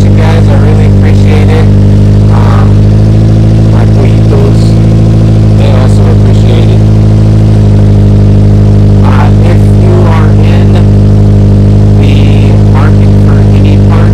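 Subaru Sambar kei truck engine running at a steady idle through a custom exhaust with an aftermarket muffler, a loud even drone.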